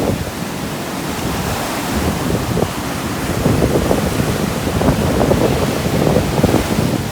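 Strong wind buffeting the microphone over the steady wash of surf breaking on the beach, a little louder from about halfway through.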